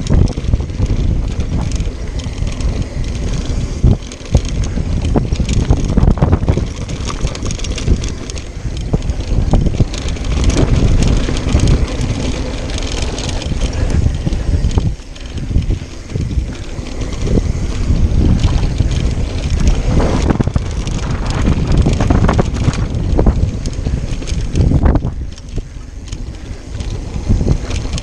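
Wind buffeting an action camera's microphone as a mountain bike descends fast on a dirt trail, with tyre noise on the dirt and a dense run of knocks and rattles from the bike over bumps.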